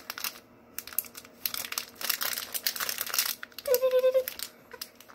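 Plastic wrapper of a Twix bar crinkling as it is handled, a run of quick crackles, followed by a short hum from a voice about three-quarters of the way in.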